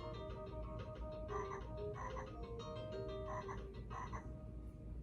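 VTech Spin and Learn Color Flashlight toy playing a recorded frog croaking sound effect over a simple electronic tune. The croaks repeat about every two-thirds of a second from about a second and a half in.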